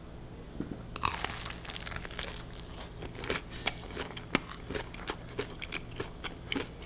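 Close-up eating sounds of a crispy fried mac and cheese ball being bitten into and chewed: irregular crunches of the fried breading, starting about a second in.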